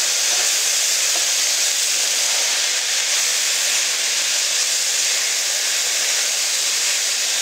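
Steady sizzling hiss from a hot pan of stir-fried chicken and vegetables as egg noodles are tossed through it with a wooden spoon; the stove is off and the pan is still sizzling on its own heat.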